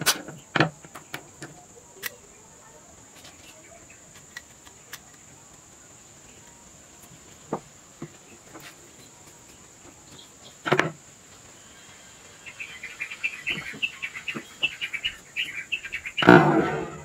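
Screwdriver tip scraping and gouging a hole in a yellow disc set in a wooden knife handle: scattered clicks, then a run of quick scratching strokes, ending in a louder knock as the piece is handled.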